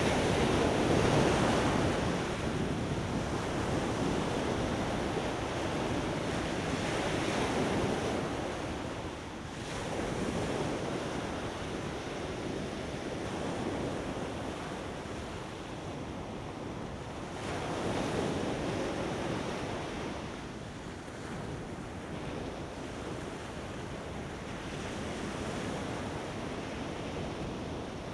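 Ocean surf washing onto a sandy beach, swelling and falling as each wave comes in, with wind buffeting the microphone.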